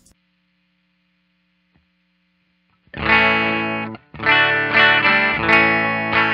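Electric guitar, a Squier Jazzmaster tuned to drop D, played through the Neural Amp Modeler plugin's capture of a Fender Deluxe Reverb amp, with no reverb added. After about three seconds of near silence, loud chords start, with a brief break about a second later.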